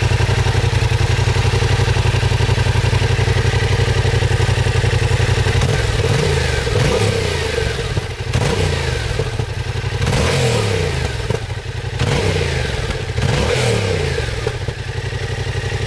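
Yamaha Tracer 700's 689 cc parallel-twin engine on its stock Euro 4 exhaust, idling steadily, then from about six seconds in revved in a series of short throttle blips, each rising and falling in pitch. The revs are kept under 6000 rpm because the engine is not yet fully run in.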